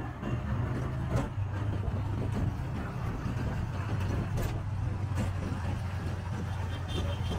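Auto-rickshaw riding through city traffic, heard from inside the cab: a steady low engine hum with road and traffic noise, and a couple of brief knocks or rattles.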